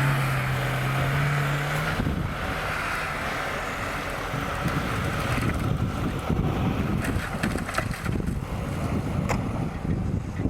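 Off-road vehicle engine running, a steady hum that gives way about two seconds in to an uneven low rumble, with wind buffeting the microphone.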